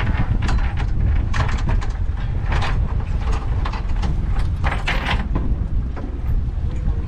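Wind buffeting the microphone with a steady low rumble, and water splashing in several short bursts.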